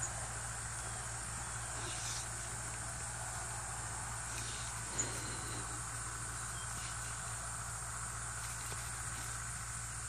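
Steady high drone of insects with a constant low hum under it, and a few faint brief noises; one short sharp click about five seconds in.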